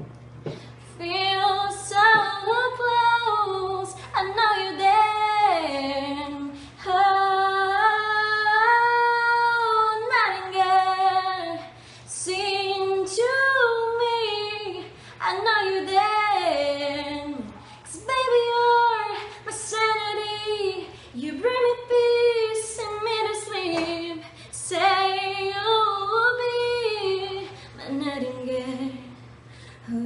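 A young woman's singing voice through a handheld microphone: long held notes that bend and slide between pitches, in phrases with short breaths between them, over a steady low hum.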